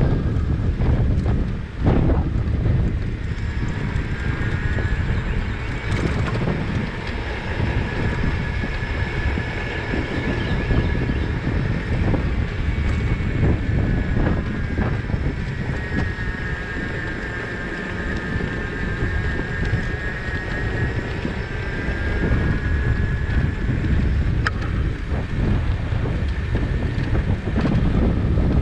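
Wind buffeting the microphone of a handlebar-mounted camera on a moving bicycle, a steady low rumble mixed with tyre and road noise. A faint high whine comes and goes in the middle.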